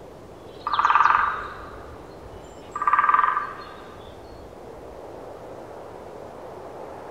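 A frog croaking twice, two rapid pulsing rasps about two seconds apart, over a steady background hiss.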